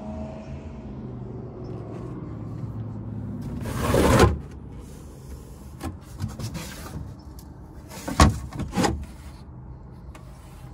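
Wooden camper cabinet doors being handled: a brief rushing swell that stops abruptly about four seconds in, then two sharp wooden knocks about eight seconds in as a cabinet is opened. A low hum runs underneath during the first few seconds.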